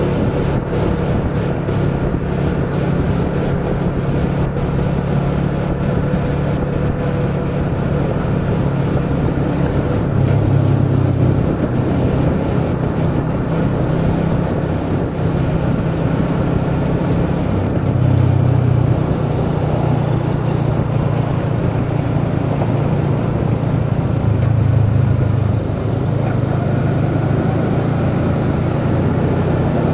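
Motorcycle engine running at a cruise, its note swelling a few times with the throttle, with wind rushing over the microphone.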